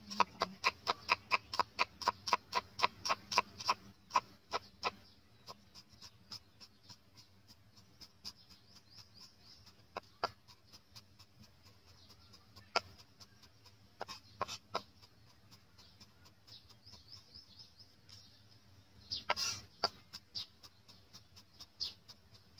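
Cleaver chopping garlic on a thick round wooden chopping block: a fast run of sharp knocks, about four or five a second, for the first four seconds or so, then slower, scattered chops with a short quick burst near the end.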